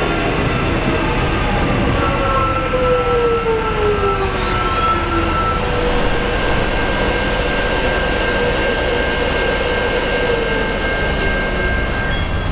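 Electric suburban train pulling away along the platform: steady running and wheel noise with whining tones that slide downward and then hold steady.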